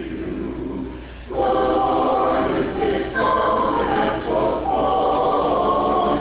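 Small choir singing. The voices drop off briefly about a second in, then come back louder on higher held notes.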